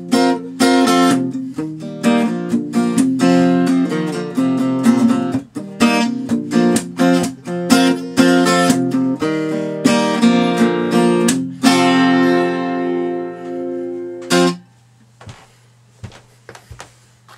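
Acoustic guitar strummed in a rhythmic closing pattern, ending on a final chord that rings for about two seconds and is then cut off suddenly. A few faint taps follow near the end.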